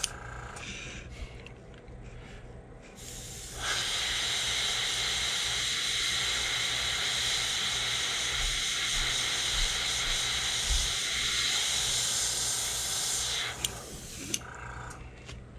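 Airbrush spraying paint: one steady hiss of about ten seconds, starting a few seconds in, with a few weaker short sprays before it and a couple of light clicks near the end.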